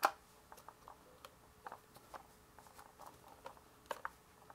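Canon EOS R6's flip-out screen, fitted with a screen protector, clicking shut against the camera body. This is followed by a scatter of small clicks and taps as the camera is handled and the screen swung back out, with two louder clicks near the end.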